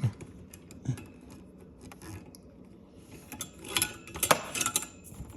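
Clicks and rattles of a fridge's child lock being worked open, with a cluster of sharper clicks and clatter about three to four and a half seconds in.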